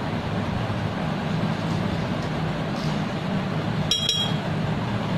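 A spoon clinks once against the glass blender jar about four seconds in, with a brief bright ring, as yogurt is knocked off into the jar. A steady low hum runs underneath.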